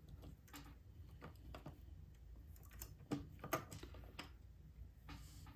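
Faint, irregular small clicks and taps of tools and parts being handled while soldering a motor's terminal tab, a few of them louder about three seconds in, over a low steady hum.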